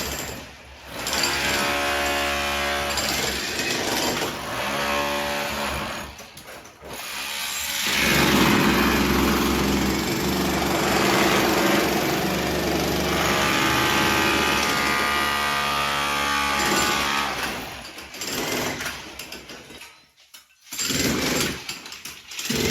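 Electric power tools at work on house demolition, in several short cut-together takes. A steady pitched machine whine alternates with a harsher hammering noise typical of a breaker hammer on masonry.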